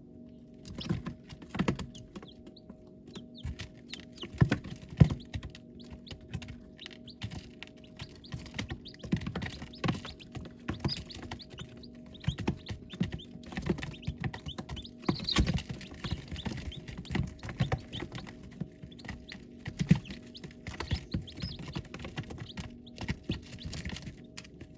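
Baby chicks moving about in their brooder: irregular tapping and scratching, some taps sharper and louder, with occasional faint high peeps. A steady low hum runs underneath.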